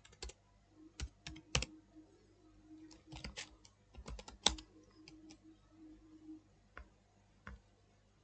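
Computer keyboard being typed on: sharp key clicks in irregular clusters and single strokes, with a faint low hum that comes and goes underneath.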